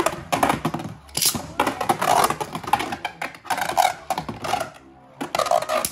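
Hasbro Beyblade Burst spinning tops (Union Achilles A5 and Cosmic Dragon) spinning in a plastic stadium, scraping across the floor and clashing with rapid clicks and knocks. There is a short lull about four seconds in, then the clashing picks up again.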